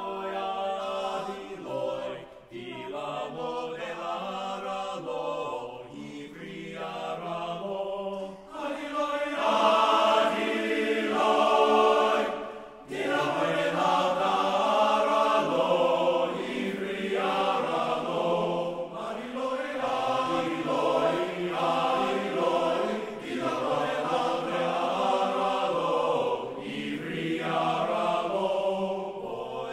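Large men's chorus singing a Georgian folk song a cappella in close multi-part harmony, with a brief break between phrases about twelve seconds in.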